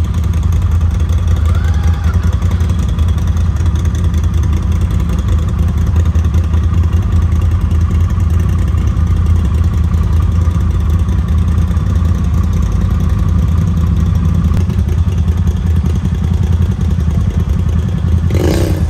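Side-by-side UTV engine running steadily while driving a trail, a constant low drone without big revs. A brief loud noise cuts in near the end.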